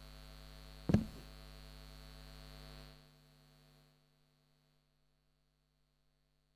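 Steady electrical mains hum from the church's sound system, with a single sharp knock about a second in. The hum fades out about three seconds in, leaving near silence.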